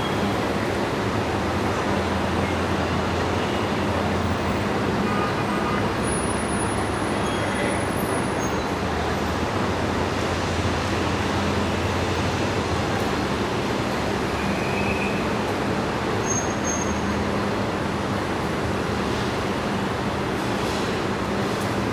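Dense city traffic: a steady, continuous wash of engine and tyre noise from many cars and buses, under a low engine hum.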